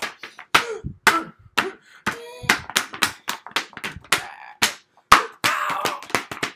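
Rapid slaps and knocks, several a second, as two paperback picture books are smacked and clapped together in a mock fight, with short vocal noises mixed in.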